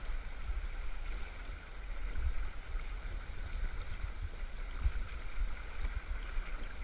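River current rushing steadily past the bank, with irregular low rumbling thumps underneath.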